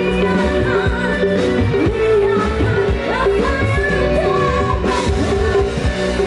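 A band playing a song with a singer.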